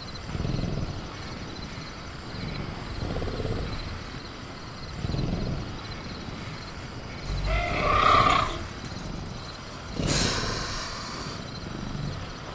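Sound-design velociraptor in a cage, breathing and growling in low swells, with one loud screeching call about eight seconds in and a harsh noisy burst about ten seconds in. Soft crickets chirp steadily under it.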